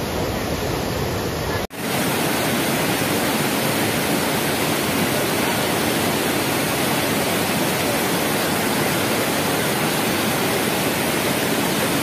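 Steady rush of a tall waterfall pouring over rocks into a pool. It drops out for an instant just under two seconds in, then carries on unchanged.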